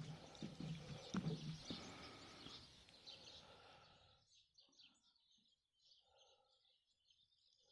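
Faint rustling and knocking noise that fades out about four seconds in, leaving small birds chirping faintly in quick high twitters.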